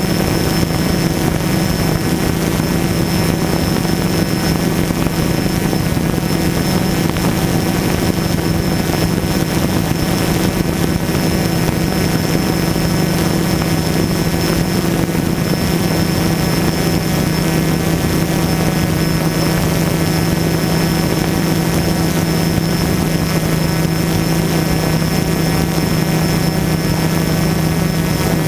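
DJI Phantom quadcopter's motors and propellers hovering, heard from the camera mounted on the drone: a loud, steady buzz with a constant high whine over it.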